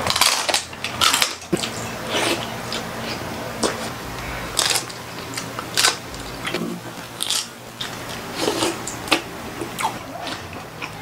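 Crunchy food being bitten and chewed close to the microphone, a string of sharp irregular crunches with a faint steady hum underneath.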